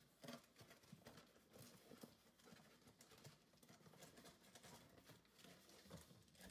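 Near silence with faint, scattered taps and rustles of trading cards and booster packs being handled.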